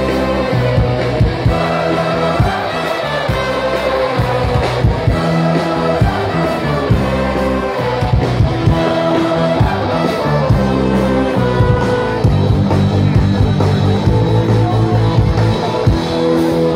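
Live band music with singing over a steady drum beat and bass line, played loud.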